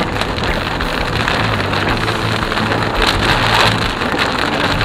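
Heavy rain falling on a car's windshield and roof, heard from inside the moving car as a steady, even rushing hiss.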